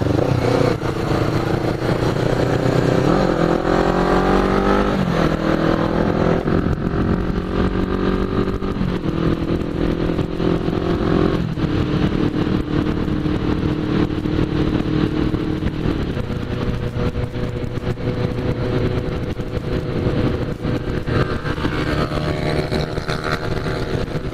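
Motorcycle engine running at road speed. Its pitch climbs as it accelerates and drops back at gear changes about five, nine, eleven and a half and sixteen seconds in.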